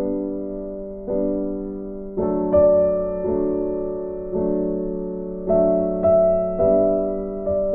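Background music: slow electric piano chords, each struck and left to ring, changing about once a second.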